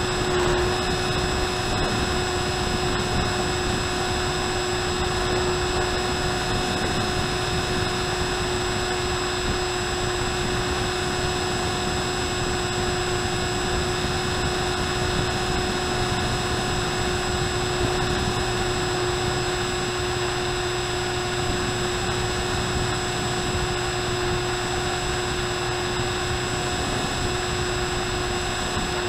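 RMRC Penguin FPV plane's electric pusher motor and propeller running at a steady cruise, with a constant whine and wind rushing over the onboard Mobius camera's microphone.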